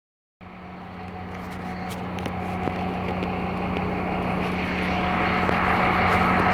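Scania K270IB bus engine running at a steady pitch, starting abruptly about half a second in and growing steadily louder.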